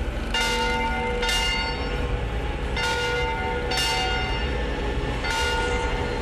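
A large bell rung by pulling its rope, clanging about five times in pairs, with each strike ringing on in several steady tones, over a low rumble.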